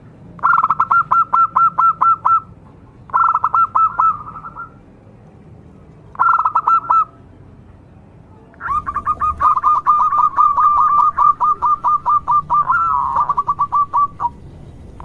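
Zebra dove (perkutut) cooing: fast runs of short staccato notes, about five a second, in three short bursts and then one long run of about five seconds near the end.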